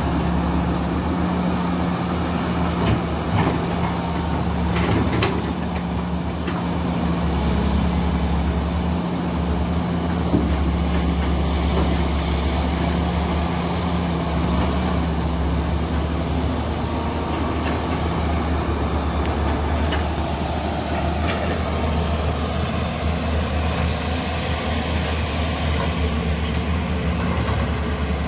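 Caterpillar E200B hydraulic excavator's diesel engine running steadily under load as it digs wet river mud, with a few short knocks in the first ten seconds.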